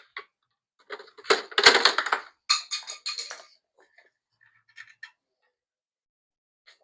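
Metallic clicking and scraping, dense for about two seconds and then a few scattered clicks: a small screwdriver worked between the pads of a disc brake caliper to spread them apart.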